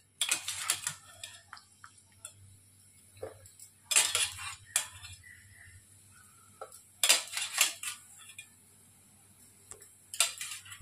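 A steel wire-mesh strainer ladle clinks and scrapes against steel pots as boiled sweet corn kernels are scooped out of the water and tipped into a bowl. The clinking comes in four short spells about three seconds apart.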